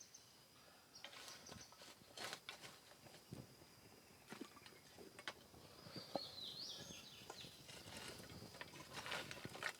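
Faint, scattered clinks and scrapes of a pot being set on a bed of campfire embers, covered with a frying pan, and embers being shovelled onto the pan lid so the cake bakes from above and below. A short wavering bird chirp comes about six seconds in, over a faint steady high insect tone.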